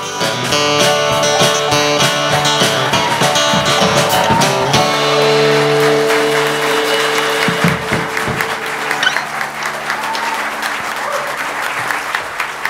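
Instrumental close of a gospel song, its final chords held and then fading. Congregation applause rises underneath and takes over after about eight seconds.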